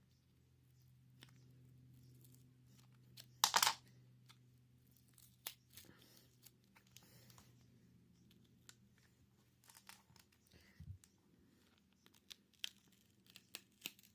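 Adhesive tearing as the back glass of a Samsung Galaxy S8 is pried away from the frame, with one short loud rip about three and a half seconds in. Scattered small clicks and taps of handling follow, over a faint low hum that fades out after about eleven seconds.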